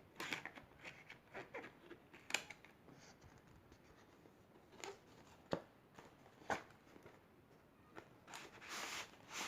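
Cardboard keyboard packaging being handled: light scrapes and taps with a few sharp clicks, then a longer rustling slide of cardboard near the end as an inner box is drawn out of the outer box.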